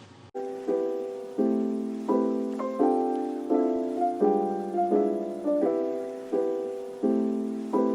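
Background piano music: a gentle melody of chords struck about every three quarters of a second, each note fading before the next.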